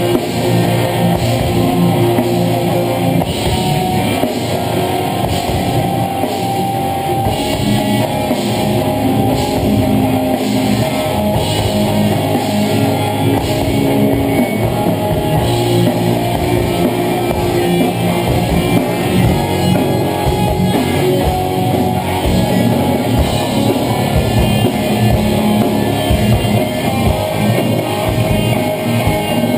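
Live rock band playing a song at steady, loud volume: electric guitars, bass guitar and drum kit.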